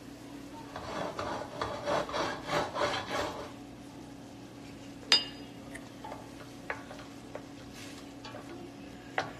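A utensil stirring a marinade sauce in a bowl: a run of rhythmic scraping strokes for a couple of seconds, then a sharp clink about five seconds in and a few lighter clicks, over a steady low hum.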